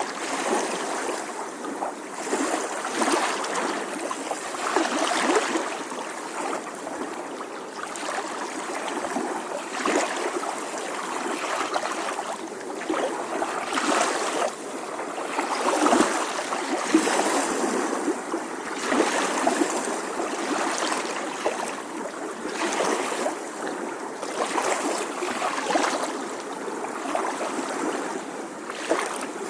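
Small ocean waves lapping on a shore: a steady wash of water that swells and ebbs every second or two, with small splashes and trickles.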